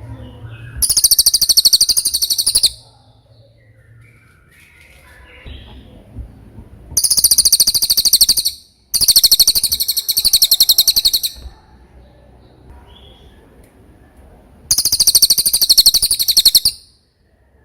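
A cililin songbird singing four loud bursts of very fast, high trilling, each lasting about two seconds, with short pauses between. This is the kind of song used as a masteran tutor recording for teaching caged songbirds.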